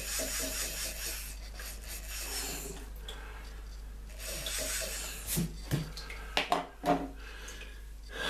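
Electric eraser buzzing and rubbing on paper in short stretches, lifting graphite to lighten an area of pencil shading. A few sharp knocks follow in the later seconds.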